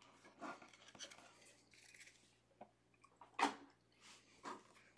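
Faint handling of trading cards on a desk: light rustling, then a sharp tap about three and a half seconds in and a softer one a second later.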